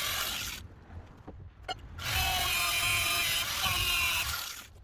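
Angle grinder grinding paint off a steel anti-roll bar with a steady whine. It runs in two bursts, stopping for about a second and a half after the first.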